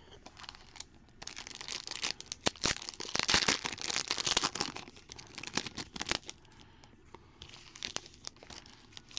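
Foil wrapper of a trading-card pack being torn open and crinkled by hand: a run of sharp crackles and rips, loudest from about two and a half to four and a half seconds in, with a few quieter crinkles near the end.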